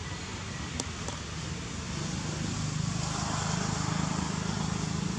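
Steady outdoor background noise with a low hum that grows louder after about two seconds, and two brief faint clicks about a second in.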